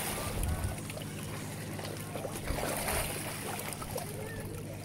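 Lakeshore ambience: water lapping at the rocks, low wind rumble on the microphone and faint voices of people nearby.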